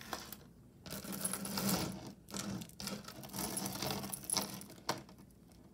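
Metal costume jewelry clinking and jingling as pieces are handled, in several short patches.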